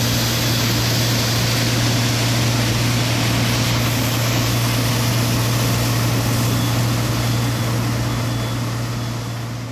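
Steady machine noise from a cold milling machine cutting asphalt and carrying it up its conveyor, together with the diesel engine of the Volvo tipper truck being loaded alongside, fading out near the end.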